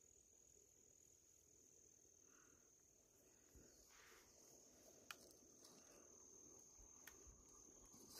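Faint, steady high-pitched chirring of crickets, with a couple of soft clicks partway through.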